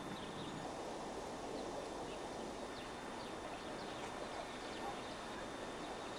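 Steady outdoor forest ambience, a soft even noise, with faint scattered bird chirps.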